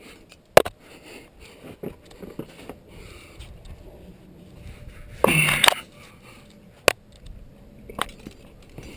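A climber's breathing, with a loud, sharp breath about five seconds in, among a few sharp clicks and knocks and small scrapes of contact on the climb.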